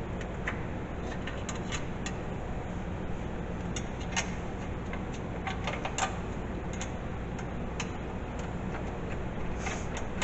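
Scattered, irregular light metal clicks and taps from bolts being threaded and worked with hand tools, over a steady low hum. The two sharpest clicks come about four and six seconds in.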